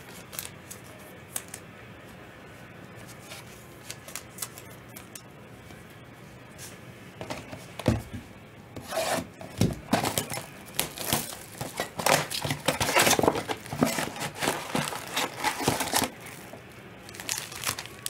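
Trading card packs being handled and opened: a few light clicks and taps at first, then from about eight seconds in loud crinkling and tearing of pack wrappers and cards rubbing against one another.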